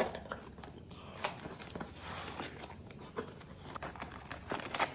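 Cardboard shipping box being cut open with a kitchen knife and its lid pulled back: scattered scrapes, small taps and the tearing of cardboard and packing tape.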